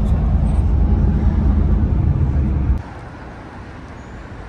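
Steady low engine and road rumble inside a moving city bus. It cuts off abruptly almost three seconds in, giving way to much quieter street traffic noise.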